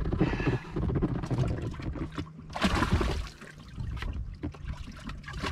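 Water splashing and trickling as a bass is handled over the boat's livewell, with a louder splash about two and a half seconds in, over wind rumble on the microphone.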